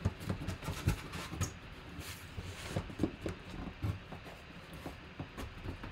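Cardboard box being handled and its flaps opened: irregular scuffs, taps and rustles of cardboard.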